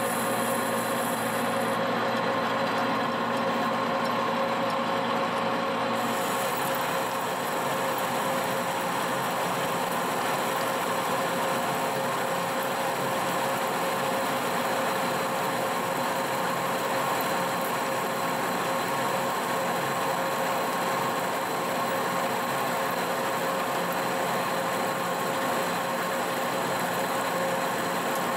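Monarch engine lathe running under load while the cutting tool takes a heavy turning cut on a steel hay rake spindle: a steady machining hum and hiss with a steady whine. The sound changes about six seconds in, the lowest hum dropping away as the hiss rises.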